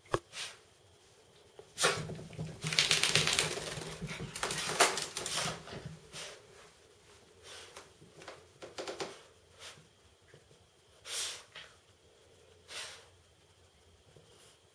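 A small Yorkie-poo dog, wet from a bath, moving about on a rug with a long stretch of rapid scrabbling and rattling a few seconds in, then a few short breathy sounds.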